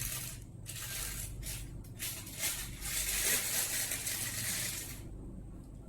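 Rustling and crinkling of camera packaging being handled. The noise runs continuously, is loudest near the end and stops abruptly about five seconds in.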